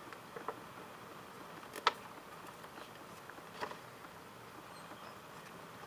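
A few short, soft paper crackles as a folded instruction sheet is handled, over a faint steady hiss.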